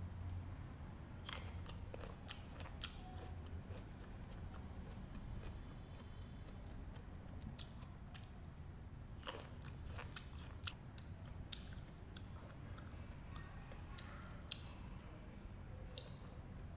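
Close-miked chewing and biting of fresh fruit: irregular crisp clicks and crunches, some of them sharper bites, over a low steady hum.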